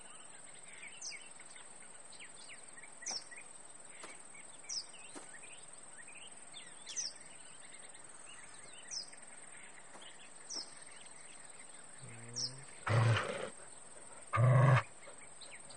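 Birds chirping faintly, a short falling call every second or two. About twelve seconds in a dog growls low, then barks loudly twice near the end.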